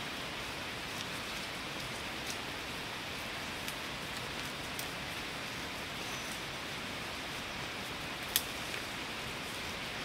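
A steady hiss of noise, with faint scattered ticks and one sharp click about eight seconds in.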